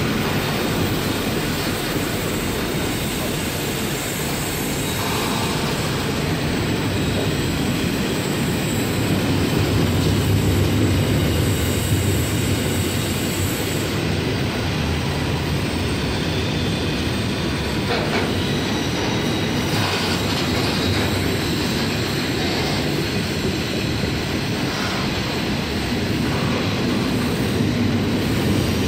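Freight train of steel-coil flat wagons and container wagons rolling past: a steady rumble of wheels on rail, with a few knocks along the way.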